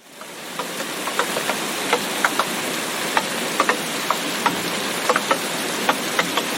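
Rain falling steadily, fading in over the first second, with many separate heavy drops tapping clearly over the hiss, several a second.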